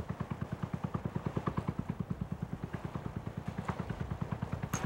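Small open fishing boat's engine running steadily under way, a regular putt-putt of about ten beats a second.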